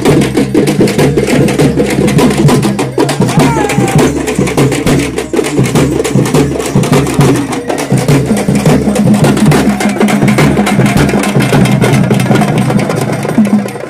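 Traditional frame drums beaten with sticks in a fast, steady rhythm, with a sustained low tone held under the drumming.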